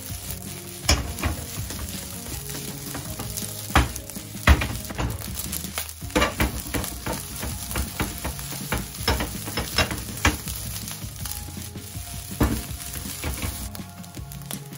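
Fried rice with mullet roe sizzling in a wok as a spatula stirs and turns it, with irregular knocks and scrapes of the spatula against the pan over the steady frying.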